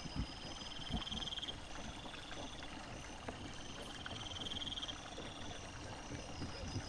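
Wild boar and piglets foraging in leaf litter: scattered soft thuds and rustles. Behind them, night insects chirp in a steady pulsing trill on two high notes, swelling twice.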